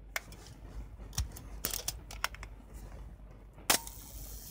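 Later-model Canon F-1 SLR: the shutter-speed dial clicks through its detents several times, then near the end the shutter fires at a slow speed, with a sharp click as it opens and then a steady whir from the slow-speed timing mechanism while it stays open.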